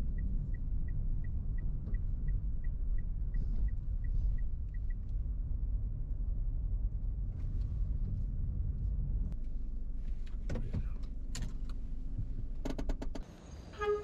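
Steady low road noise inside a car as it pulls slowly off the road. For the first five seconds the turn-signal indicator ticks evenly, about two or three times a second, and a few sharp clicks come near the end.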